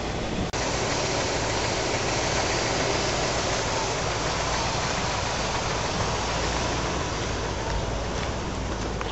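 Vehicle engine and tyres on a gravel road, heard from inside the moving vehicle: a steady rumble and hiss of road noise, with an abrupt change in the sound about half a second in.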